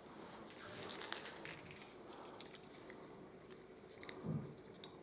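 Small clicks and rustling from handling a blank pistol's magazine and cartridges. The clicks bunch together about a second in, with a few faint ones and a soft low knock later.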